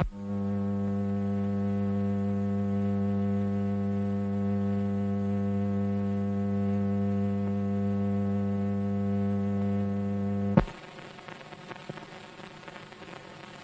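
Loud, steady electrical hum with a buzzy series of overtones, unchanging in pitch; it starts with a click and cuts off abruptly with another click about ten and a half seconds in, leaving faint hiss and crackle.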